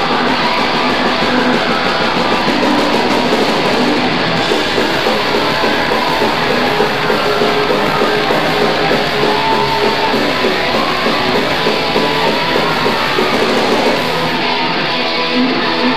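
Live punk rock band playing an instrumental passage: distorted electric guitars, bass and drums, with no vocals.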